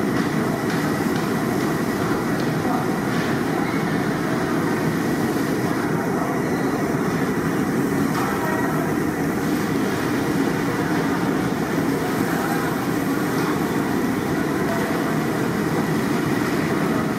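Fish pieces deep-frying in a black iron kadai of oil, bubbling and sizzling steadily over the rush of a high-flame gas burner, with a few light ladle clinks.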